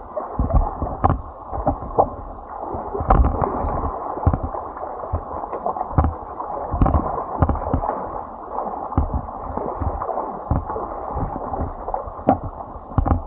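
Muffled rushing and splashing water with irregular knocks and bumps throughout, as heard through an action camera in or beside the water.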